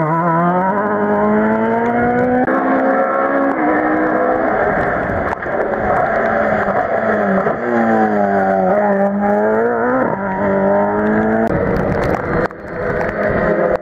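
Rally car engines at full throttle: a Mk2 Ford Escort accelerates away with its revs climbing, then drops pitch about two and a half seconds in as it changes up. Later the next car comes up the road, its revs dipping and rising again around nine seconds in.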